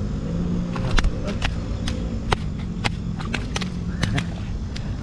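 A string of sharp slaps and taps from about a second in, typical of a big mullet thrashing in a cast net, over a steady low engine hum.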